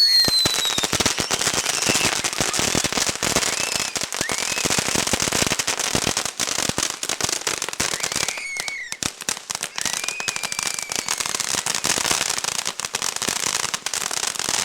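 Consumer fireworks crackling: a dense, rapid run of small sharp pops over a steady hiss.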